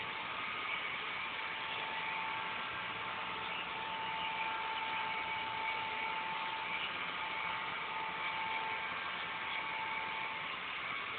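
Robot vacuum cleaner running: a steady whir of its suction fan and brush motors, with a constant hum-like tone.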